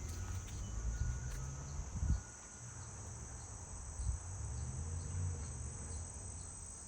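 Crickets chirring in a steady high-pitched chorus, with a few soft low thumps.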